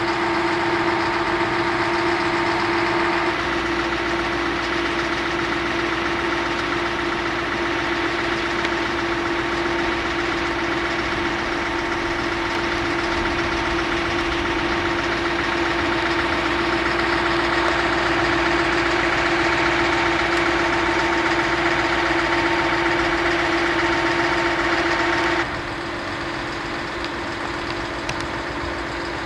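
Danish-built IC3 Flexliner diesel trainset idling: a steady engine hum with a constant drone. The sound changes abruptly twice, about three seconds in and near the end.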